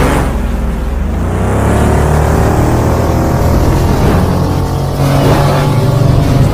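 Intro sound effect of a futuristic motorbike engine revving up over a steady deep bass, its pitch climbing slowly and the whole sound getting louder about five seconds in.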